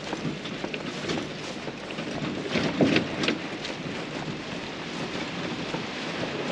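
Footsteps crunching through dry, flattened grass, with an irregular rustling crackle that is busiest about three seconds in.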